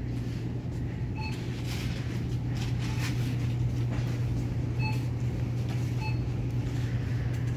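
Store background: a steady low hum, with short electronic beeps, one about a second in and two more in the second half.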